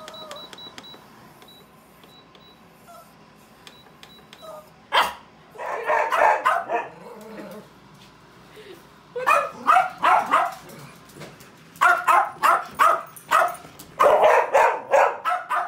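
Food dehydrator's control panel giving a quick run of short high beeps as its timer button is pressed. Then a dog barks in repeated bursts, a dog that hates the dehydrator's beeping.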